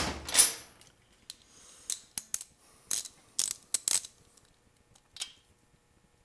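Ratchet wrench clicking in short, irregular bursts on a valve-adjuster lock nut of a 1985 Honda XR600 engine, with a loud knock right at the start. The valve clearance closed up when the lock nut was torqued, so the adjustment is being reset.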